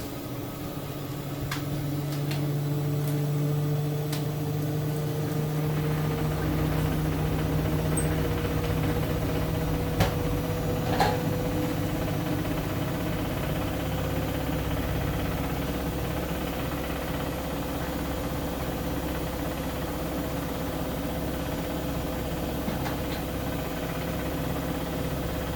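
Siemens Siwamat IQ 716 washing machine running: a steady motor hum, with a low rumble setting in about six seconds in and two short clicks near the middle.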